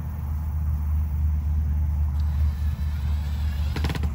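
Steady low rumble throughout. Near the end a cordless drill runs briefly, driving a screw into the wooden mounting board.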